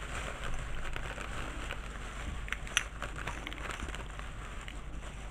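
Thin plastic shopping bag rustling and crinkling as hands rummage through it, with one sharper crackle a little before three seconds in.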